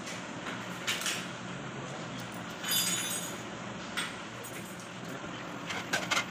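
Steady background hum with a few brief rustles and light clinks, about four in all, as banknotes are handed over and pinned onto a garland of paper money and foil. The clink about three seconds in has a short ringing tone.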